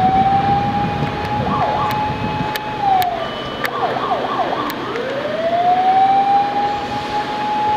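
Fire-service vehicle siren wailing. Each cycle rises slowly, holds its high note for a couple of seconds and falls away, and a second rise starts about five seconds in. Shorter, quicker wavering tones and a few sharp clicks sound over the wail.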